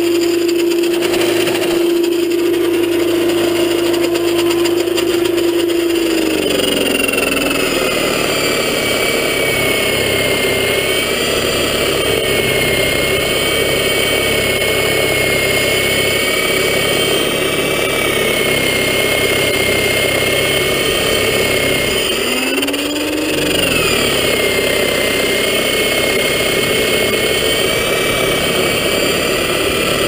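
Motor of an old electric snowblower running steadily with a whine as it churns through snow. About six seconds in its pitch drops as it bites into deeper snow. Later it sags briefly and recovers.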